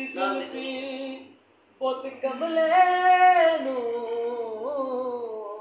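A man singing unaccompanied in a high voice, holding long, wavering notes. A short phrase breaks off about a second in, and after a brief pause a longer held phrase slides down in pitch toward the end.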